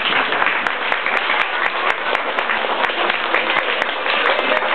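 Audience applauding: many hands clapping at once in a steady patter.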